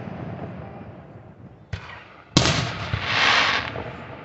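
Aerial fireworks bursting: the fading rumble of a burst, a small sharp pop a little under two seconds in, then a loud bang about two and a half seconds in, followed by a swelling hiss about a second long.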